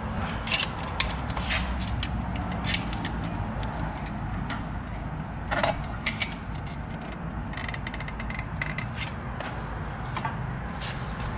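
Scattered metal clicks, knocks and scrapes of hand tools prying a seized brake caliper loose from a Chevrolet 2500HD's front brake, over a steady low hum. The caliper is stuck, which the mechanic takes as a sign of worn calipers.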